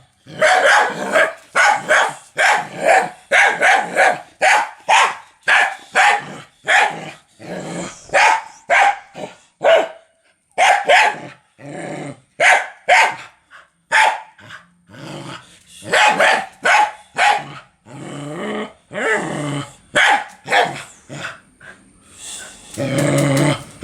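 A dog barking loudly in rapid, continuous volleys of about two to three barks a second, with a couple of short pauses. Near the end the barking gives way to a longer, low growl.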